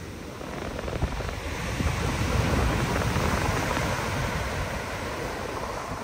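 Big ocean waves breaking: a rush of surf that builds over the first two seconds or so and then slowly dies away, with wind buffeting the microphone.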